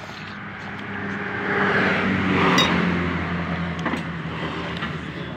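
A motor vehicle passing on the road: its engine hum and tyre noise grow louder to a peak about halfway through, then fade away.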